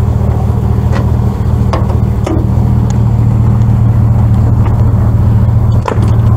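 A vehicle engine idling steadily close by, a loud, even low hum. A few light knocks and clatters sound over it, about a second, two seconds and six seconds in.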